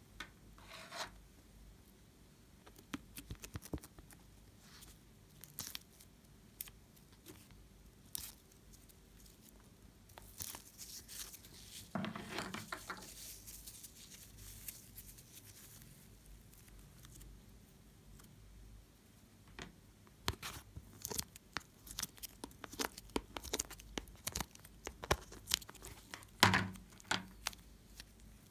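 Soft clay and slime being pressed and pulled apart in the fingers, with sticky crackles and small pops at irregular intervals. A longer crackling tear comes about halfway through, the crackling is denser near the end, and the loudest pop comes just before the end.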